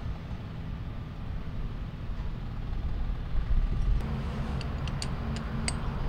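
A steady low machinery rumble, joined at about two-thirds through by a steady hum, with a few light metallic clicks near the end as an adjustable wrench is fitted onto the bolts of a pipe facing machine's eccentric arm.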